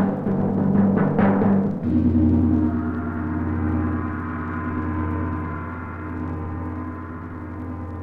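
Film-score percussion: a few sharp drum strikes, then, about two seconds in, a deep gong stroke that rings on and slowly fades.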